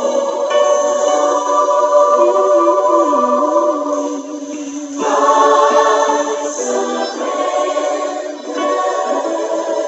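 Several voices singing together in a choir, holding sustained notes, with a short break in the phrase about four seconds in.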